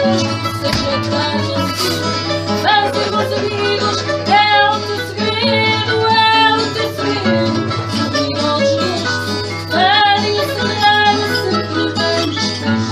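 Fado played on Portuguese guitar and classical guitar: a plucked melody with some bent notes over strummed accompaniment.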